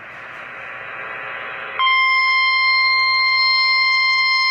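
Radio hiss, then about two seconds in a NOAA Weather Radio warning alarm tone cuts in: one loud, steady, single-pitched tone held without a break, the signal that a severe weather warning is about to be read.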